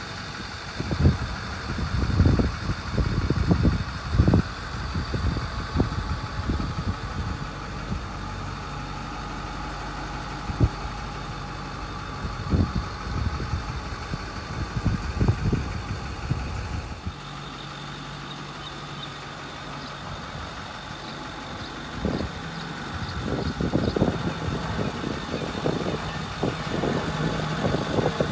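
A diesel engine idling steadily, its pitch pattern shifting about two-thirds of the way through, with irregular low thumps scattered over it.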